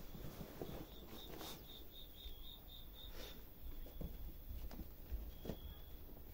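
Faint rustling of cloth and soft thumps as a kitten scrabbles and paws on a cotton sheet and satin fabric is pulled away. A high, quick chirping trill of about ten pulses sounds from about one to three seconds in.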